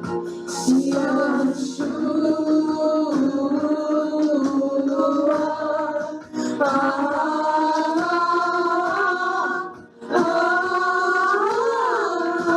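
Praise-and-worship music: a voice sings long held notes over a steady instrumental backing. The music drops out briefly about ten seconds in, then returns with a note that bends up and down.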